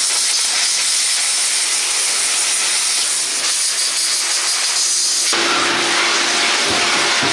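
Shop vacuum running, its hose nozzle sucking dirt off an RC truck's chassis: a loud, steady rush of air that deepens suddenly about five seconds in as the nozzle moves.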